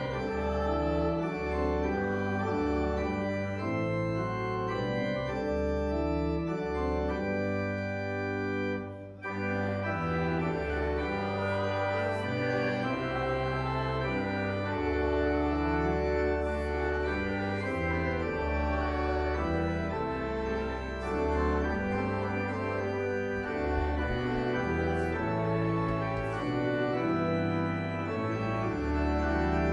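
Church organ playing sustained chords in a slow, hymn-like progression, with a brief break in the sound about nine seconds in.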